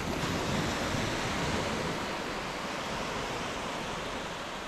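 Small waves washing onto a sandy shore: a steady hiss of surf mixed with wind on the microphone, swelling at the start and easing off slowly.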